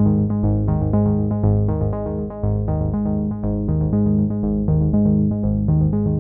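Background music: synthesizer notes repeating in a quick, even pattern over low bass notes.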